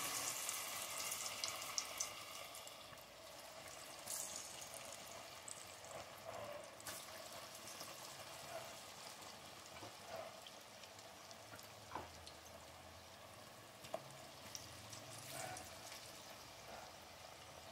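Egg-and-flour-coated potato fries deep-frying in hot oil in a pot: a faint, steady sizzle with scattered pops, loudest in the first couple of seconds, as more raw fries are dropped into the oil.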